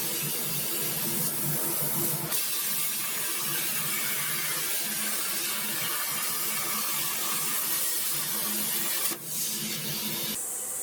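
Steady loud hissing with a faint low hum beneath from workshop machinery. It breaks off abruptly twice and resumes at once, and the hiss thins out near the end.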